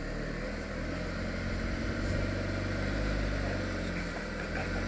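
Jeep Renegade engine running at low revs as the SUV creeps forward over rocks, the hum building a little about two seconds in and easing again near the end.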